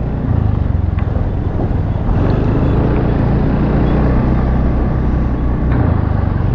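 Engine running steadily at a constant pace, a low hum under a broad rushing noise.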